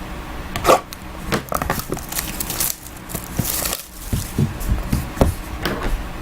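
Hands opening a sealed box of trading cards: crinkling of the plastic wrapper, with scattered clicks and light knocks as the box is handled.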